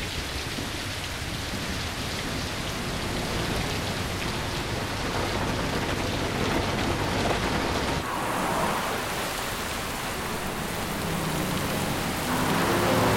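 Heavy rain pouring steadily onto a wet road. Near the end a vehicle's engine and wet tyres grow louder as it approaches.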